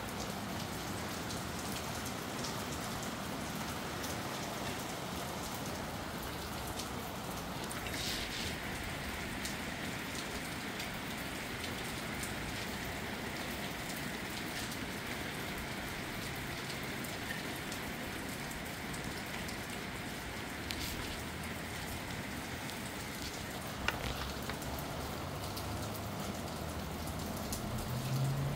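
Steady rain falling, with scattered drops ticking on a nearby surface and one sharper tick late on. A low hum comes up near the end.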